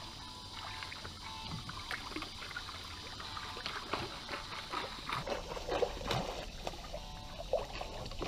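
A hooked fish splashing and thrashing at the surface beside a wooden dock as it is brought in, the splashes coming harder and more often in the second half. A steady high insect drone runs underneath.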